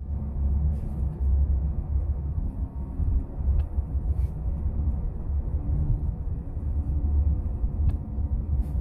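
Steady low rumble of road and engine noise inside a car cabin while driving at moderate speed, with a few faint clicks.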